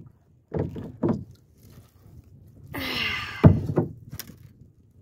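A blue catfish being hauled aboard a kayak: short hollow thumps and knocks against the hull, the loudest about three and a half seconds in, after a brief rasping sound.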